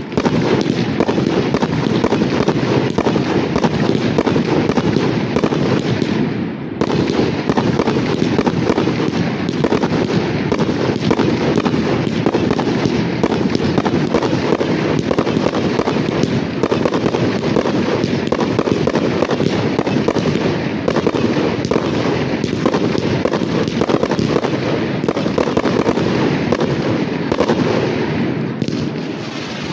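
Fireworks going off in a dense, continuous barrage of rapid bangs and crackles, with a brief dip about six and a half seconds in and a slight easing near the end.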